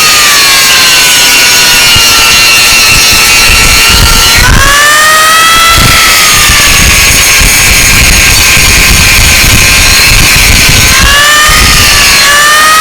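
Angle grinder running loud and steady, its high whine slowly dropping in pitch and then quickly climbing back, about a third of the way in and twice near the end, over a hissing grinding noise.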